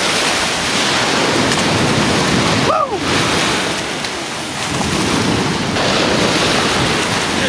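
Surf washing up on the beach with wind buffeting the microphone, a steady dense rush. About three seconds in comes one brief rising-and-falling cry.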